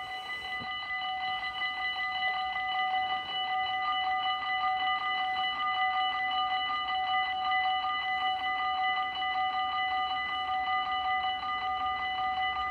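Dutch level-crossing warning bell ringing in rapid, even strokes, warning that a train is coming while the barriers lower.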